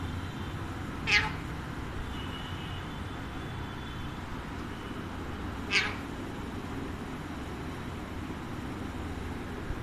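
Alexandrine parakeet giving two short, loud calls, about a second in and again four and a half seconds later.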